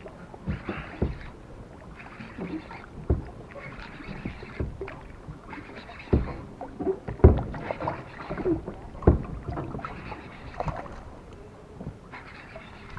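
Water lapping and sloshing against a small boat's hull in short surges every second or two, with scattered soft knocks from gear against the hull.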